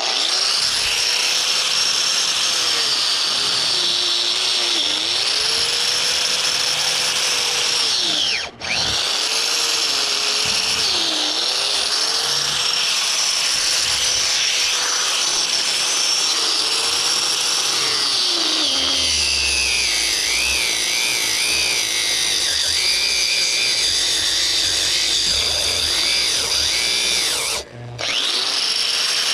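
Loud electric power tool running under load while working into a heavy power cable. Its motor whine sags in pitch and recovers again and again as it bogs down, and it stops briefly twice, about a third of the way in and near the end.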